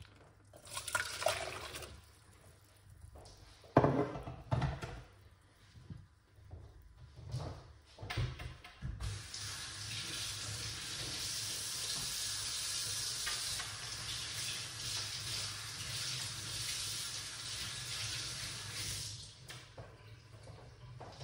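Water poured from a glass cup into a stainless steel saucepan, then a few knocks, then a tap running steadily for about ten seconds before it is shut off.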